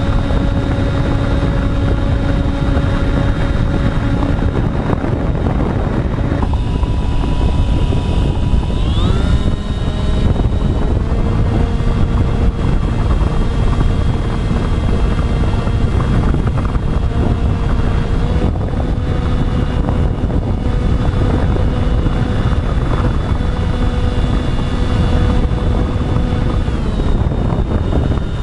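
Electric motors and propellers of an FPV model aircraft running as a steady whine that changes pitch several times with the throttle, gliding up about nine seconds in, over a heavy low rumble.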